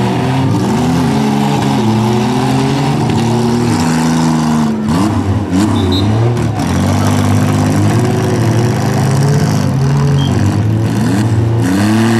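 Several demolition-derby minivan engines revving hard against each other, their pitches swinging up and down again and again as the vans push and spin their wheels in the dirt.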